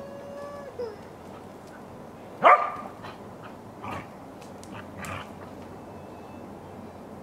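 Dog barking: one sharp, loud bark about two and a half seconds in, then two fainter barks. A high held whine or cry fades out at the start.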